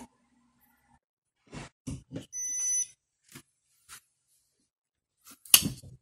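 Beautiful programmable 14-cup coffee maker giving a single short electronic beep as it powers on, among a few clicks and knocks, the loudest knock near the end.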